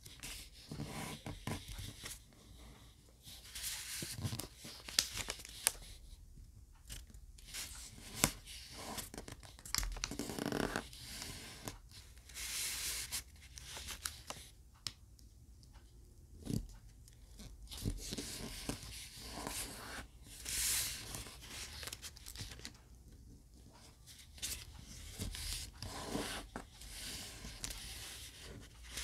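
Thin square origami paper rustling and crinkling as hands fold it and press the creases flat, in irregular bursts with a few sharp clicks.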